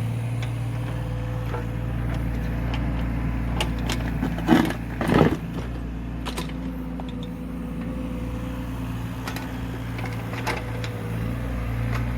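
An engine running steadily at an even speed, with a couple of louder scraping knocks about four and a half and five seconds in, and scattered light clicks.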